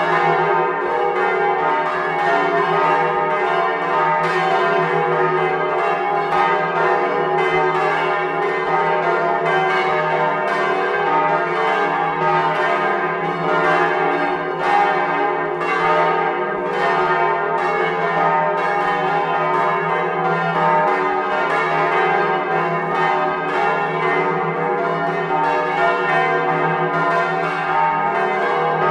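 Several large swinging bronze church bells, the biggest a 1,500 kg bell cast in 1524, ringing together in a full peal. Their strokes overlap continuously at a steady loudness, each ringing out over the others.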